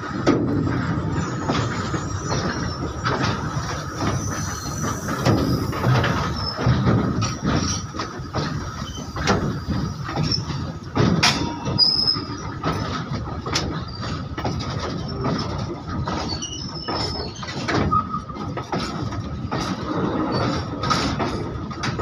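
Freight train of open coal wagons rolling past close by: steady rumble and clatter of wheels on the rails, with sharp knocks here and there and a thin, steady wheel squeal running underneath.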